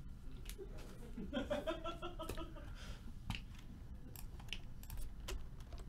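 Scattered light clicks and taps in a quiet room: a trading card being set down on a table and a computer keyboard and mouse being used.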